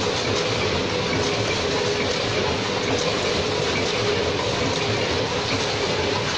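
Baopack VP52IIB vertical form-fill-seal packing machine and its snack packaging line running: a steady mechanical clatter and whir with a faint constant hum.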